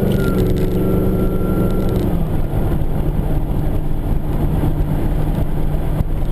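Supercharged 6-litre V8 of a VE Commodore ute running under way at a steady pitch, the engine note dropping about two seconds in and then holding lower.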